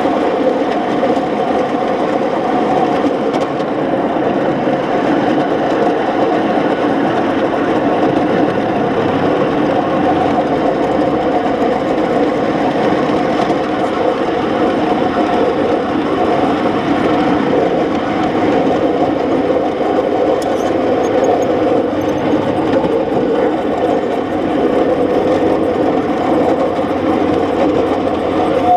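A 7.25-inch gauge coal-fired live-steam locomotive running along its track with a steady mechanical running noise from the engine and wheels, heard from the driver's seat.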